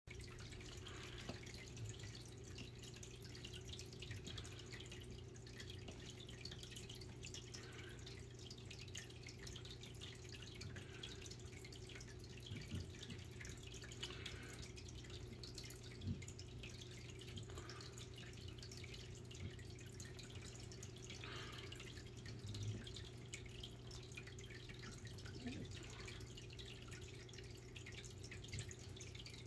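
Faint water dripping and trickling in an indoor turtle tank at irregular intervals, over a steady low electrical hum.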